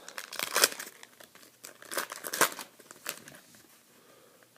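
Plastic trading-card pack wrapper crinkling and tearing in the hands as a pack is opened, in irregular bursts that die away near the end.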